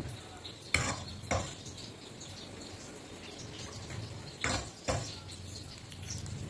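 Metal ladle clinking against a pot and a ceramic bowl as rice porridge is ladled out: two sharp clinks about a second in and two more near the end.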